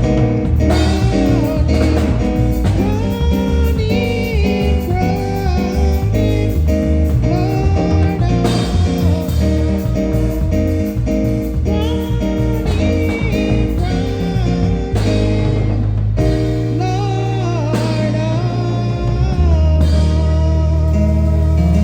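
A hymn sung over a full band accompaniment, with sustained chords, guitar, drums and a heavy bass line.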